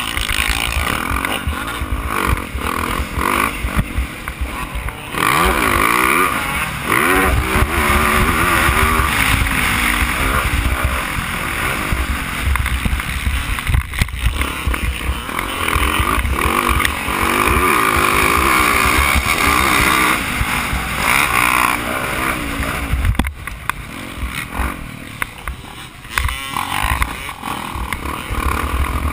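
Motocross bike's single-cylinder engine heard onboard at race speed, revving up and down as the throttle is opened and rolled off through the turns, with wind rush on the microphone. It eases off for a few seconds near the end.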